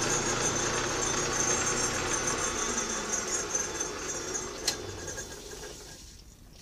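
Belt-driven Atlas metal lathe running with a cast-iron hand wheel spinning in it. There is a sharp click about two-thirds of the way in, and after it the running sound fades as the lathe is switched off and coasts down.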